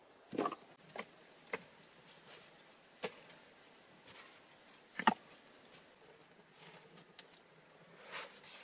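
Small wood fire crackling under a kettle on a metal grate: a handful of sharp pops and knocks, the loudest about five seconds in, over a faint steady hiss.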